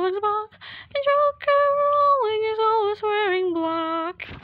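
A woman singing unaccompanied, holding long wordless notes that step downward in pitch, with a short breath about half a second in.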